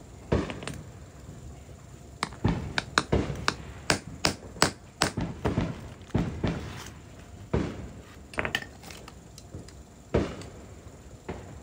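A hammer striking metal on a drive shaft's universal joint: about twenty sharp knocks in uneven clusters, some ringing briefly.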